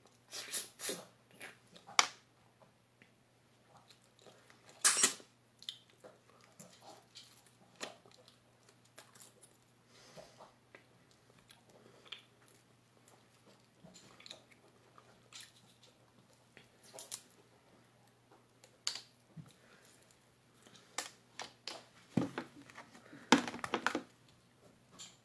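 Close-up eating sounds from picking apart a cooked lobster: scattered small clicks and cracks of shell being pulled and snapped, with soft chewing and mouth sounds. The cracks come in short clusters, the loudest just before the end.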